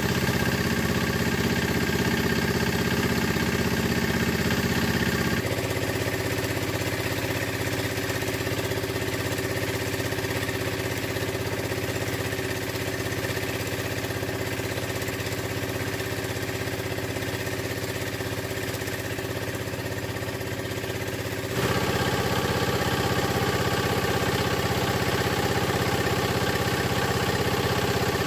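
Small single-cylinder diesel engine running steadily, driving a banana-stalk shredder. About five seconds in its sound turns abruptly thinner and a little quieter, and about 22 seconds in it goes back to its fuller, louder sound.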